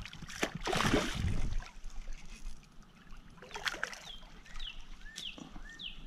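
A hooked carp splashing at the surface beside a kayak, with a loud splash about a second in and smaller splashes later. Short chirps repeat throughout in the background.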